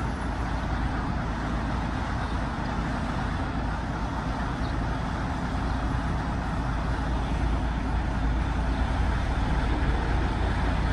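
Small diesel shunting locomotive's engine running steadily as it creeps forward, the low rumble growing slightly louder as it approaches.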